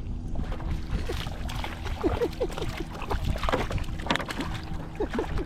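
Water and hull noise on a fishing kayak, with knocks and handling sounds and several short squeaks.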